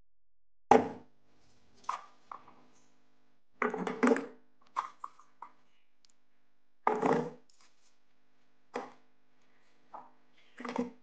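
Red shallots dropped one by one into an empty plastic blender jar, each landing as a knock followed by a short ring of the jar. About a dozen knocks come at irregular intervals, some in quick clusters, and the first, about a second in, is the loudest.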